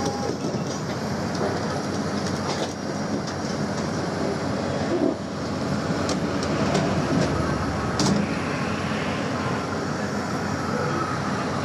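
Heavy machinery running steadily with a low rumble, with a few sharp metallic knocks and clanks, the loudest about 8 seconds in.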